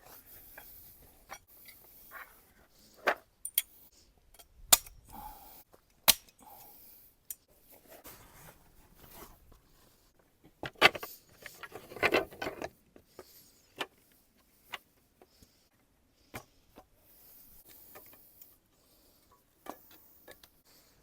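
Scattered clicks and knocks of small hard objects being handled, with a denser clatter about eleven seconds in.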